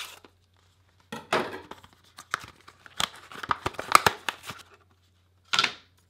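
Packaging noise: a knife slitting the seal of a cardboard RAM box, with tearing and scraping. It is followed by plastic crinkling and a few sharp clicks as the box is opened and the modules' plastic tray is handled.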